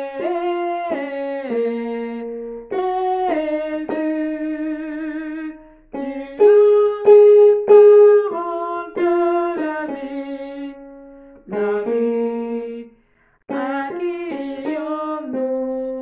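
A woman singing one vocal line of a worship song alone, in short phrases of held notes with slight vibrato. Brief pauses break the phrases about six, eleven and thirteen seconds in.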